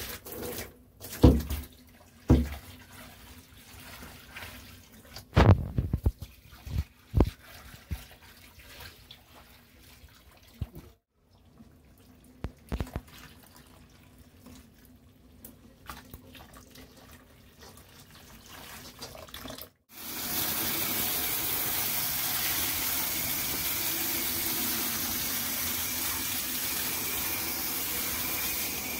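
A few knocks and clunks in the first half, then about twenty seconds in, a steady rush of hot tap water running and splashing over a plastic plant pot in a bathtub.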